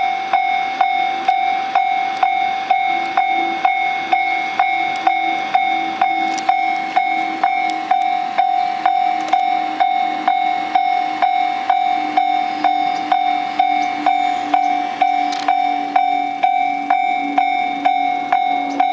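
Railway level crossing warning bell ringing steadily, about two strikes a second, with a fainter low tone slowly falling in pitch underneath.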